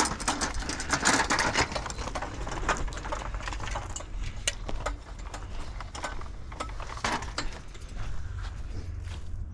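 Scrap being handled and moved about: irregular knocks, clicks and rattles with some scraping, over a steady low hum.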